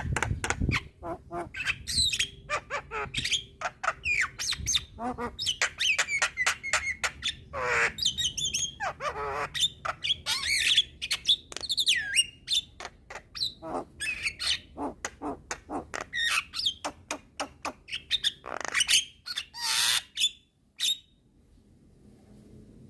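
Javan myna (jalak kebo) in full song: a fast, varied run of sharp clicks, whistled gliding notes and harsh raspy squawks. It stops about two seconds before the end.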